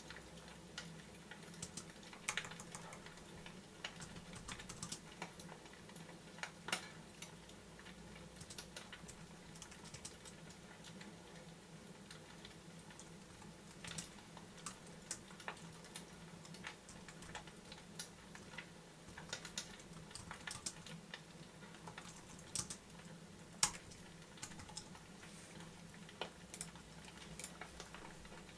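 Sparse, irregular light clicks and ticks over a faint steady low hum.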